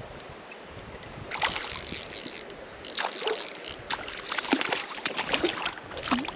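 Hooked brown trout thrashing at the surface of a creek, in a run of irregular splashes starting about a second in, over the steady wash of flowing water.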